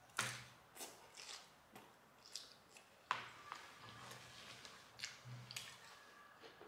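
Close-up chewing of a mouthful of salad: irregular, soft crisp crunches, with two sharper ones, one near the start and one about three seconds in.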